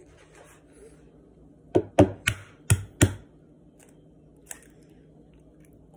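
Five sharp knocks in quick, uneven succession on a kitchen work surface, about two seconds in, then a single faint click near the end.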